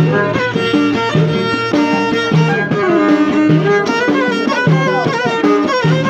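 Moroccan Middle Atlas folk music: a violin plays a gliding, ornamented melody over a low beat that repeats about every second.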